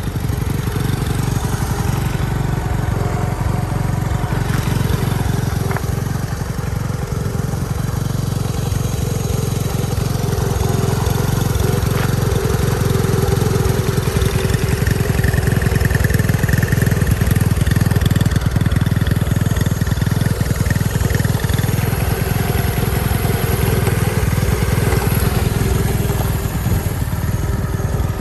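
Small air-cooled horizontal single-cylinder motorcycle engine idling steadily through a chrome exhaust pipe, a little louder through the middle.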